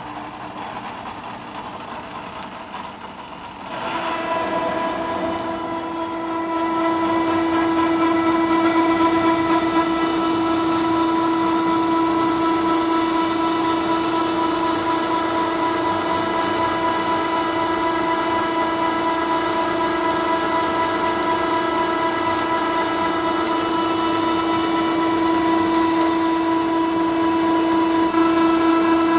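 Drill bit in a milling machine cutting a bolt hole through thick steel plate, giving a steady pitched whine that starts about four seconds in and grows louder a couple of seconds later as the cut takes full load.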